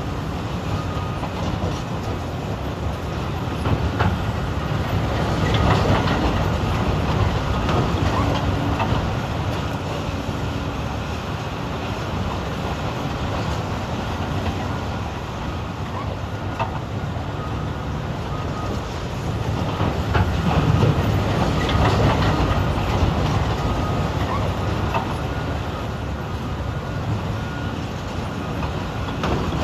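Caterpillar 395 excavators and CAT haul trucks working a quarry face: heavy diesel engines running under load, with rock clattering into the truck beds. The noise swells several times as buckets are swung and dumped.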